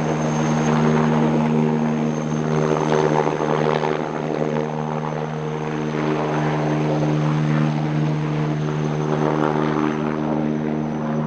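Helicopter running steadily: a loud drone of several steady low tones under a thin, high whine.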